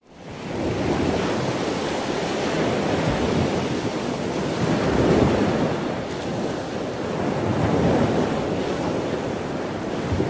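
A steady rushing noise that fades in at the start and swells gently twice, about halfway through and again near the end.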